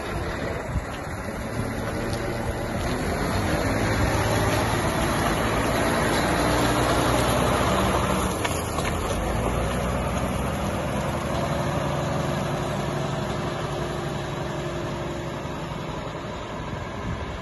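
Volvo L150H wheel loader's six-cylinder diesel engine running as the loader drives off, loudest about halfway through and then fading as it moves away.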